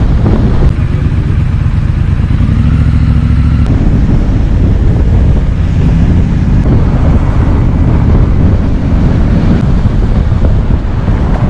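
Motorcycle engine running as the bike rides along the road, with heavy wind rush on the microphone. The engine note stands out clearly for a few seconds early on and rises slightly before it is swamped again by the wind and road noise.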